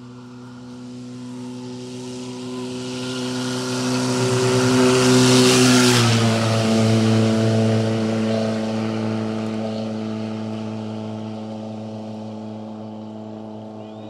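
Rally car approaching at full speed on a gravel road, its engine note held steady. The car passes about six seconds in, where the note drops in pitch, then fades away along with the hiss of tyres on gravel.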